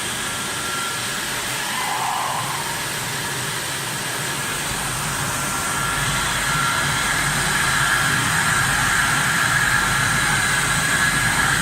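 Vertical flat glass washing machine running: a steady machine noise that grows louder and fuller about halfway through.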